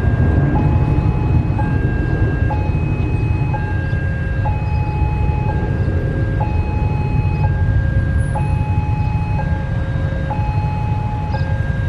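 Railway level-crossing warning alarm sounding as a train approaches: a higher and a lower tone alternate, each held about a second, over a steady low rumble.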